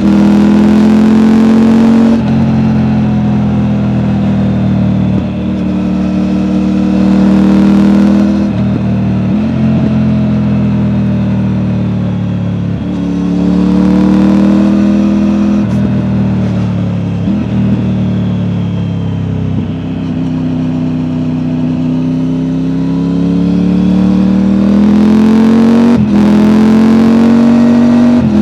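Triumph Tiger 900's three-cylinder engine through an Akrapovic exhaust, heard from on board under way: the engine note climbs and falls repeatedly with several short breaks at gear changes. The exhaust has a deep note with a slight burble.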